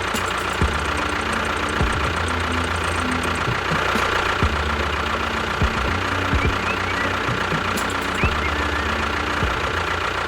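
The small motor of a home-built mini tractor or bulldozer running steadily, with a fast, even knocking rhythm under a low hum.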